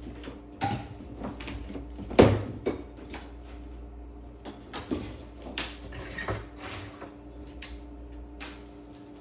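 Irregular knocks, clicks and clatter from faucet parts and hose being handled inside a sink cabinet. The loudest knock comes about two seconds in, over a steady low hum.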